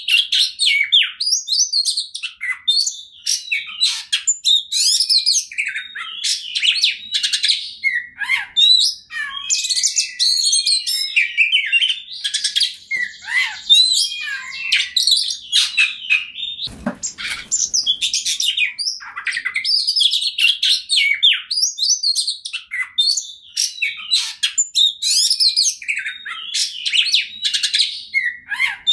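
Male Oriental magpie-robin (kacer) singing a loud, unbroken, varied song of fast whistles, chirps and harsh rattling notes: full aggressive 'ngobra' song. About two-thirds of the way through there is a brief low thud or rustle.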